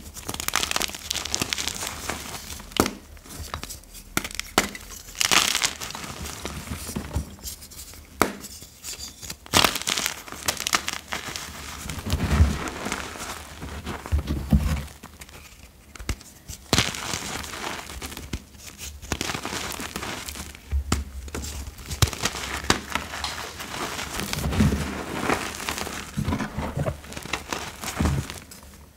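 Gym chalk blocks and loose chalk powder being crushed and crumbled by hand: continuous irregular, crisp crunching and crumbling. There are a few softer, heavier presses into the powder heap about halfway through and again near the end.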